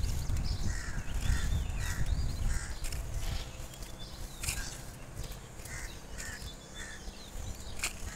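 A bird calling in a series of short repeated notes, about two a second, over a low rumble that fades about three seconds in.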